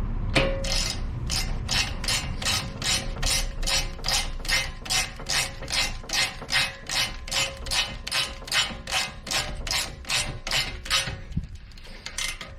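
Hand ratchet clicking in a steady rhythm, about two to three strokes a second, as it runs the brake caliper's hex bolts down until they are tight.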